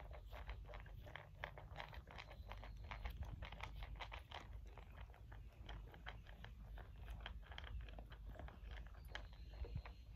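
Great Pyrenees puppy crunching and chewing food from a dish, a quick irregular run of crisp crunches several times a second.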